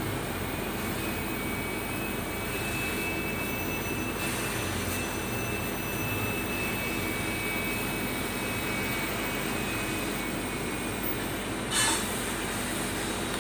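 Oxy-fuel cutting torch hissing steadily as it cuts through the sheet-steel fender panel of a bus, with one brief louder burst near the end.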